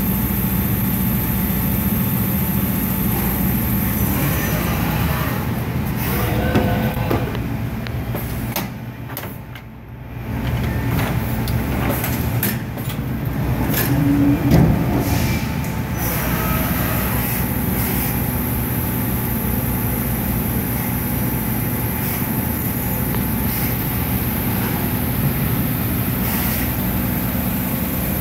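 CNC machining center milling metal bar stock with an end mill: steady spindle and cutting noise with chips spraying against the guards. The noise drops briefly about nine to ten seconds in, then picks back up.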